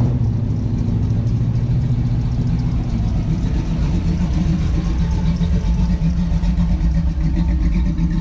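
Car engine running at low speed, a steady low note that changes to a different engine note about three seconds in.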